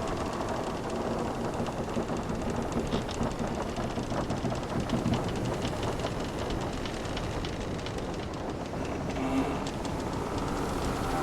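Wooden sailing ship's timbers creaking, with runs of small rapid ticks and a few drawn-out creaks, over a steady rush of ocean waves.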